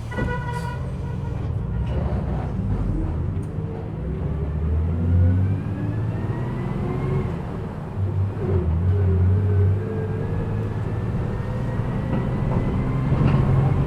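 City bus heard from inside the cabin, its engine rumbling and a whine rising in pitch as it pulls away and gathers speed. An electronic beeping tone cuts off about half a second in.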